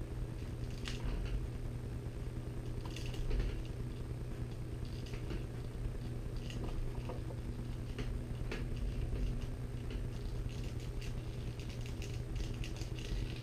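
Soaped kangaroo-leather strands rustling and creaking with scattered small ticks as they are plaited by hand into a stock whip's overlay, over a steady low hum.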